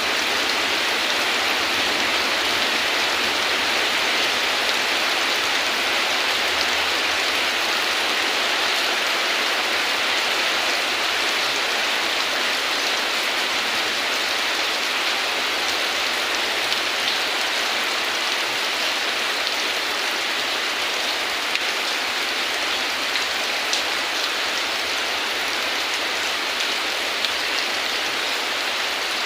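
Steady heavy rain pouring down, an even hiss with occasional louder individual drops.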